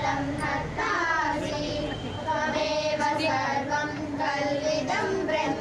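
High-pitched voices singing a song with long held notes, with some talking mixed in.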